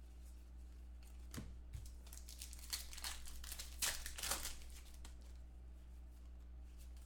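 A plastic trading-card pack wrapper crinkling and tearing in short, irregular bursts as a pack of football cards is opened and the cards are handled.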